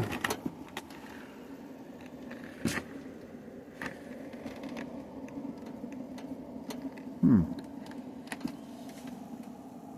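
Small clicks and knocks of equipment being handled, a few spaced seconds apart, over a steady low hum; a short falling sound about seven seconds in.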